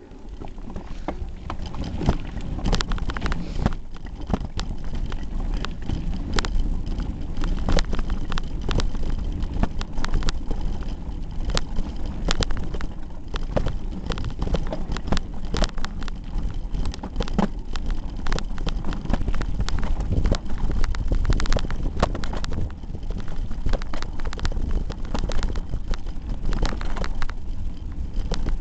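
Hardtail mountain bike rolling over a gravel forest trail, heard through a camera taped to the handlebars: a constant clatter of irregular knocks and rattles as the bars jolt over the stones, over a low rumble.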